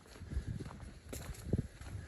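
Hiker's footsteps on a trail: irregular soft thuds with a few sharper clicks mixed in.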